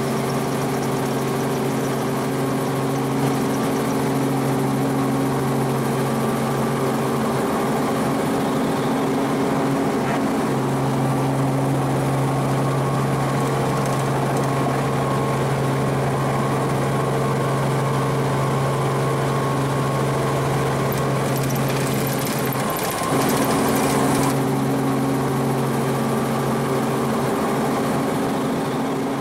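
Helicopter engine and rotor running steadily, heard from inside the cabin, with a steady hum of several tones. About 22 seconds in, a brief rush of hiss lasts a couple of seconds.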